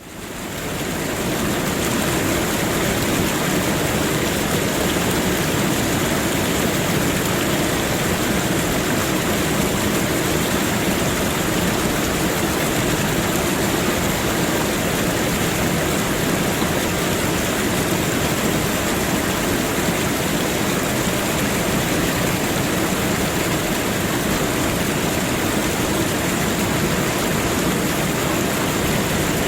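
Waterfall: a steady rush of falling water that fades in over the first second.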